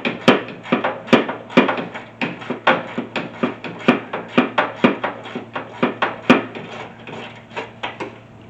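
Hand ratchet clicking in quick, regular strokes, about three to four a second, backing out rusted fender bolts by hand. The clicking thins out and stops near the end.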